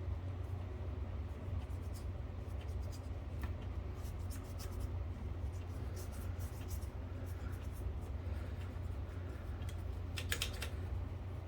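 Small clicks and scrapes of hands working on a typewriter's metal parts, with a short cluster of sharper clicks near the end, over a steady low hum.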